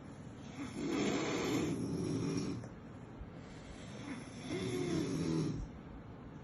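Sleeping puppy snoring: two drawn-out snores, each a second and a half to two seconds long, about three and a half seconds apart.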